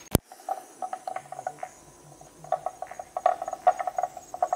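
Frogs calling at a pond: bursts of rapid pulsed croaks, one cluster early and a longer run in the second half, over a faint steady insect trill. A single sharp click sounds right at the start.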